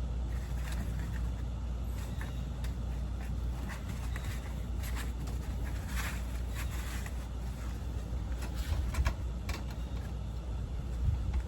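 Handling noise from fitting the arms onto a clown animatronic prop: scattered rustles and clicks of fabric and plastic parts, over a steady low rumble.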